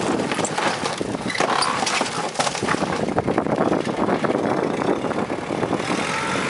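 Kubota diesel tractor with a front-end loader running, over irregular cracking and clattering of the wooden lean-to and its aluminum roof sheets as they are pulled down. Near the end the clatter dies away and the engine runs on steadily.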